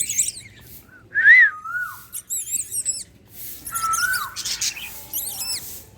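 Birds calling: a clear call that rises then falls about a second in and again near four seconds, with thin high chirps and squeaks between.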